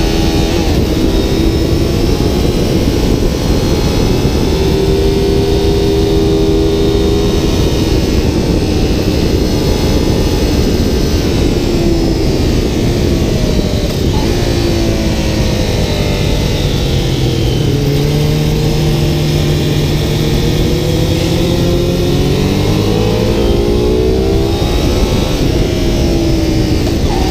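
Aprilia Dorsoduro 750's 90-degree V-twin engine pulling hard at speed, its note climbing and dropping with throttle and gear changes. The pitch falls and stays low for a few seconds past the middle, then climbs again, under heavy wind rush on the fork-mounted microphone.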